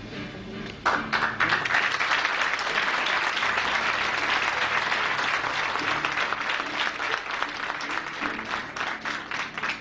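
Audience applauding: the clapping breaks out suddenly about a second in, holds as a dense, steady round, then thins to scattered claps near the end.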